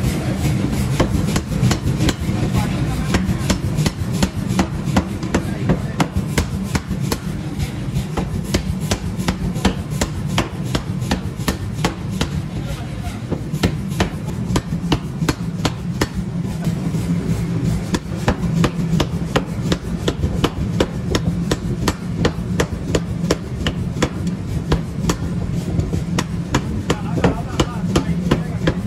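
Power forging hammer pounding a red-hot steel piece on its anvil in a rapid, even series of heavy blows, over the machine's steady low drone.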